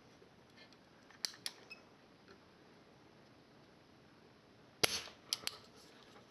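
Koto spring-loaded solder sucker (desoldering pump) firing with a single sharp snap just under five seconds in, followed by two lighter clicks. A couple of faint clicks about a second in come from handling the tool.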